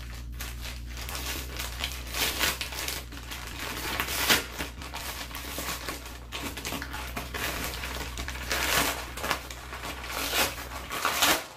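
Brown kraft-paper mailer crinkling and crackling as it is cut open with scissors and pulled apart by hand: a continuous irregular rustle with a few louder crunches.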